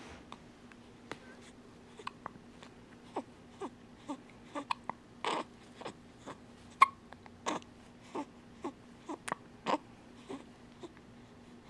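Baby hiccuping, with short sharp catches coming irregularly, often more than one a second, mixed with small fussy whimpers.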